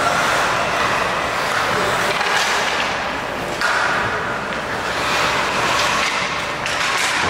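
Ice hockey play on an indoor rink: skate blades scraping and carving the ice and sticks working the puck, a steady rush of noise with a sudden louder scrape about three and a half seconds in.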